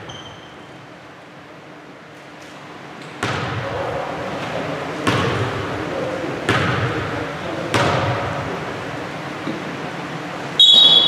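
A basketball thudding on a hardwood gym floor four times, each bounce echoing around the hall. A loud, short, shrill referee's whistle blast comes near the end.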